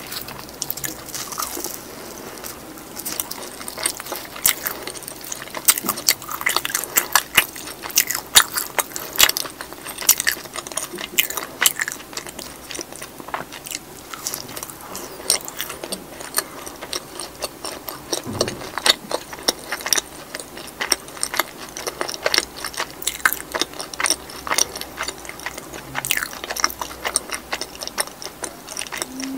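Close-miked biting and chewing of a fried cheese ball, with many short, sharp crackles of its crust throughout.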